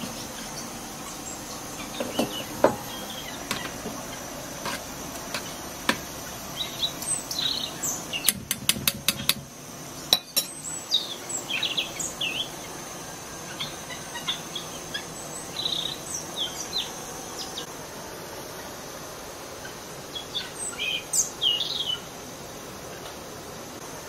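Small birds chirping, with scattered clinks of a metal spoon on a metal cooking pot, including a quick run of about seven taps near the middle. A faint steady high insect drone underlies it.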